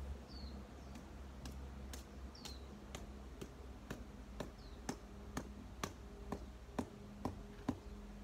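A steady series of sharp taps, about two a second, growing louder toward the end, with a few short falling bird chirps in the first half over a low steady hum.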